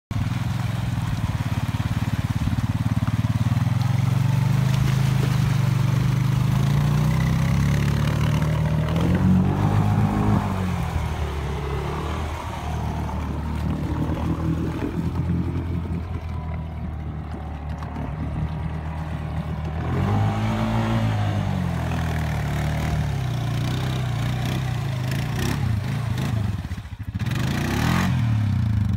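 Honda Foreman 500 ATV's single-cylinder four-stroke engine running under load through deep water, revving up and back down twice. Near the end it drops out briefly, then surges sharply.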